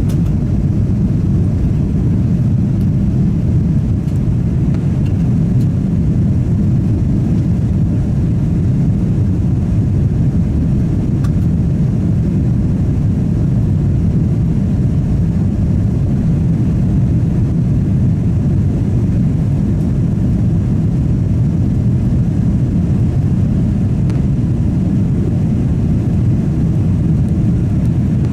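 Steady cabin noise inside a Boeing 777-300 heard from a window seat: a constant low rumble of the engines and airflow with a faint hiss above it.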